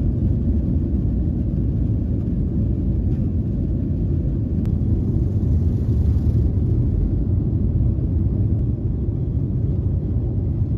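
Jet airliner engines at takeoff power with the rumble of the takeoff roll, heard from inside the passenger cabin: a loud, steady, deep noise as the plane races down the runway and lifts off.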